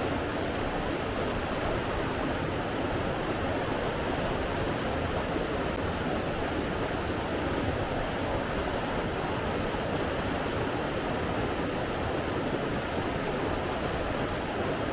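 Running water rushing steadily and evenly, with no swells or breaks.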